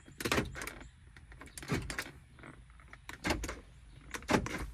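Ford Mustang power door lock actuators clunking several times as lock and unlock are pressed on the newly programmed key-fob remotes, a sign that each remote now works the locks.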